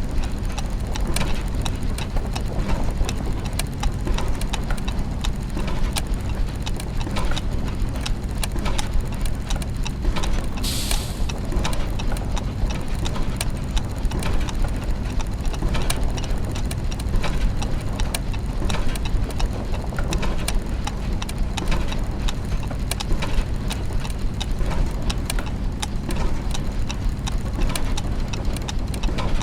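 Layered clockwork mechanisms and meshing gears ticking and clicking continuously over a low steady hum, with ratcheting pawls in the mix. A short burst of hiss, like escaping steam, comes about eleven seconds in.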